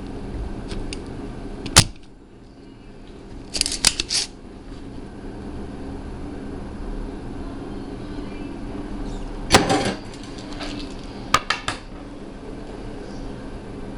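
Spring-loaded desoldering pump (solder sucker) firing with a sharp snap about two seconds in, followed by short bursts of clicking and rattling around four, ten and eleven seconds in as the pump is worked and reset.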